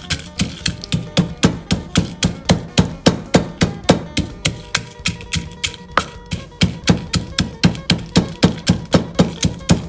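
Pestle pounding papaya salad in a mortar, a steady rhythm of thuds at about four blows a second.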